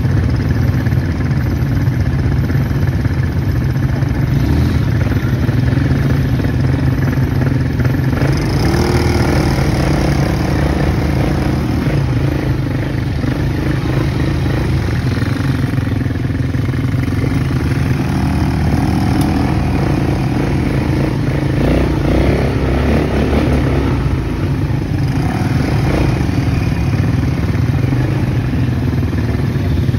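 ATV (quad bike) engines running steadily on the move along a dirt trail, the engine note shifting a few times as the throttle changes.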